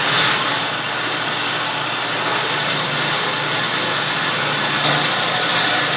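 Motorised target carrier running steadily along its track, bringing a paper target back in from 25 yards.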